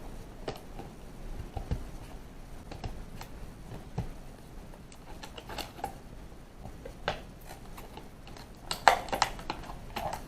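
Irregular small clicks, taps and rattles of a Kwikset SmartKey lock being taken out of its packaging, with a denser, louder clatter near the end.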